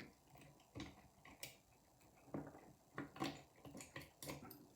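Faint, irregular light metallic clicks and taps, about a dozen, as the levers and spacers of a 5-lever mortice sash lock are handled and lifted out of the lock case.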